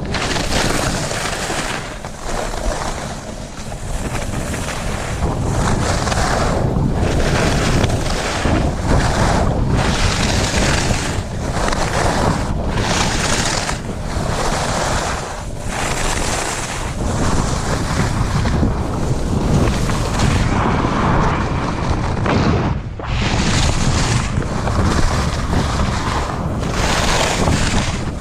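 Wind rushing over the microphone on a fast downhill ski-slope run, with the hiss and scrape of edges on snow that surges and eases every second or two as turns are linked.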